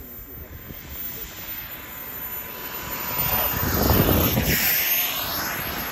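Radio-controlled model airplane flying low past along the runway on its landing approach, landing gear down. Its motor noise swells to its loudest about four seconds in as it goes by, then eases off.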